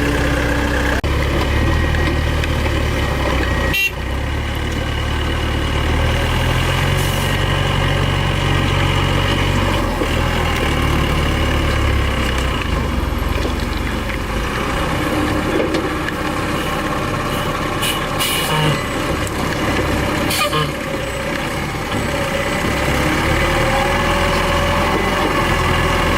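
Heavy diesel engine running steadily, a deep continuous rumble, with a few short sharp clicks.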